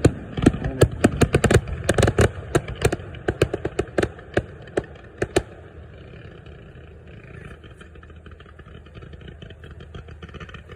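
Fireworks going off in a rapid, irregular string of bangs and cracks, several a second, which stop about five and a half seconds in. A steady low rumble with faint crackles remains.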